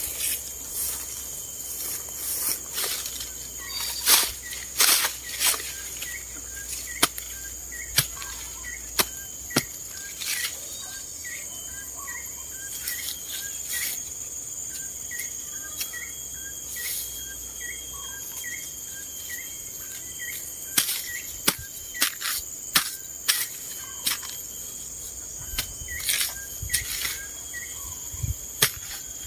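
Steady high-pitched insect drone with a short chirp repeating about twice a second, over scattered sharp clicks and knocks.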